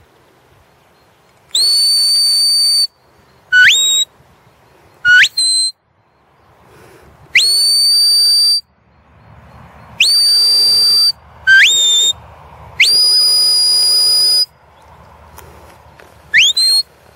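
Sheepdog handler's whistle commands to a working border collie: a series of long steady high whistles, each held over a second, alternating with short, loud whistles that sweep sharply upward in pitch, about eight calls in all.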